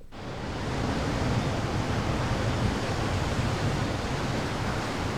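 A steady rushing noise, like surf or rushing water, that swells in over about the first second and then holds even.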